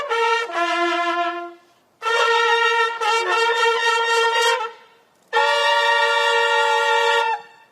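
A military bugle call: a couple of short notes, then two long held notes with brief pauses between them.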